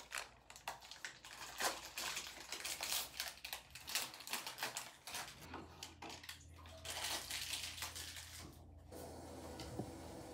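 Plastic wrapper of a pregnancy test being torn open and crinkled, in irregular crackles. A faint steady hum comes in near the end.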